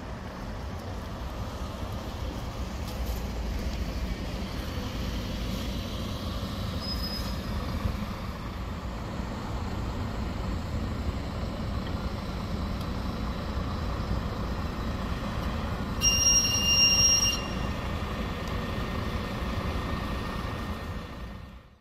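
City buses and a tram moving through a transit stop: a steady low diesel bus engine rumble and traffic noise as the vehicles pull away and pass. About 16 seconds in, a loud high steady electronic tone sounds for over a second.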